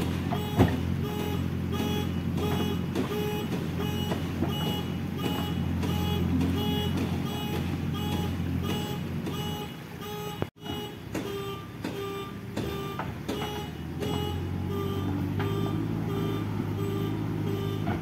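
JCB backhoe loader's diesel engine running under its reversing alarm, which beeps steadily about twice a second. There is a brief dropout a little past the middle, after which the engine and beeping carry on.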